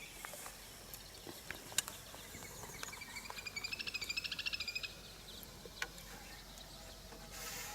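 A small bird's rapid trill, about two seconds long, in the middle of a quiet outdoor background, with its pitch rising and then falling. A couple of isolated sharp ticks come before and after it.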